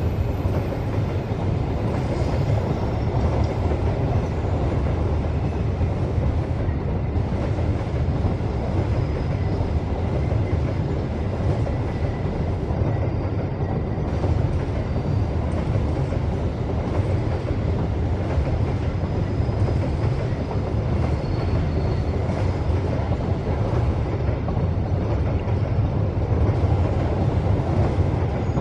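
Coal train of open hopper wagons rolling steadily past behind a pair of CC205 diesel locomotives, a continuous deep rumble of wheels on rail with some clickety-clack.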